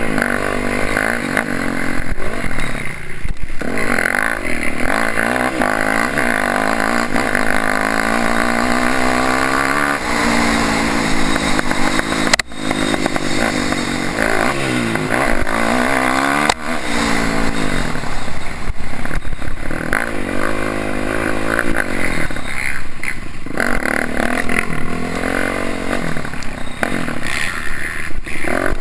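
Engine of an off-road vehicle being ridden hard on a dirt trail, its pitch rising and falling with the throttle, with two brief drops, about 12 and 16 seconds in, where the power comes off.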